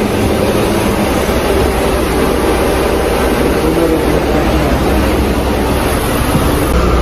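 Steady rumble and noise of a city bus running, its engine and motion heard partly from inside the cabin.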